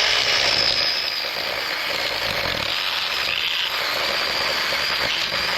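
Battery-powered 21-volt mini chainsaw running and cutting, a steady high whine over the rasp of the chain. The chain is driven again now that the motor's drive gear has been tack-welded.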